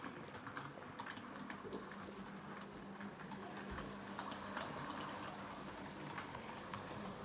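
Model railway diesel locomotive hauling a train of coaches along the track: a faint steady electric motor hum with a light patter of small clicks from the wheels on the rails.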